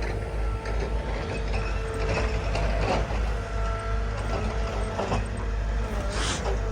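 Tree-felling heavy machine running with a steady low engine rumble and a thin whine, with several sharp knocks and cracks as it works.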